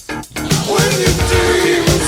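Blues-rock band music: a brief break in the band, then the drums and bass come back in about half a second in, under a sustained, slightly bending melody line.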